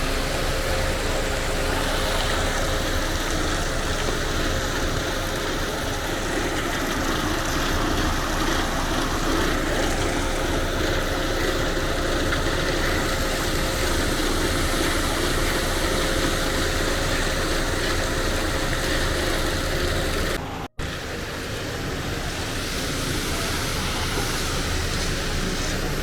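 Steady motor vehicle engine and road noise. Near the end it cuts out for an instant and then carries on.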